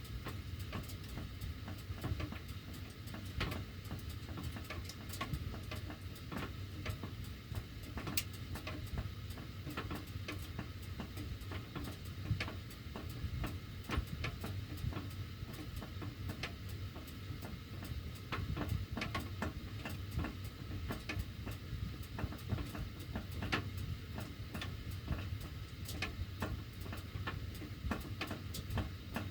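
Sheet-metal heating ductwork ticking and clicking irregularly, several sharp clicks every second, while the heat is running, over a steady low hum.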